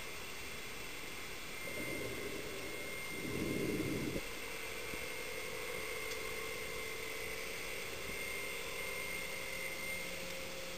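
Steady motor whine and hum heard underwater: thin tones come and go over a hiss, with a muffled rumble that swells about two seconds in and cuts off at about four seconds.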